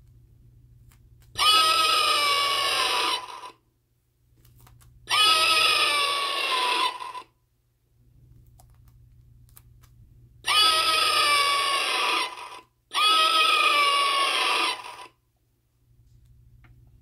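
Battery-powered vintage Halloween talking doormat playing a recorded scream through its small speaker box, set off by pressure on the mat. It screams four times, about two seconds each, the last two almost back to back. Each scream is a high, held wail that sags a little in pitch and sounds tinny.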